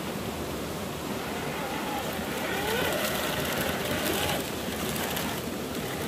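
Steady rush of running water, with faint voices talking in the background from about halfway.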